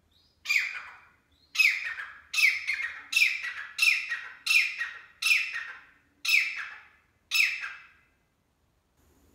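Grey francolin calling: a run of about nine loud, harsh notes, each starting sharply and trailing off, repeated under a second apart.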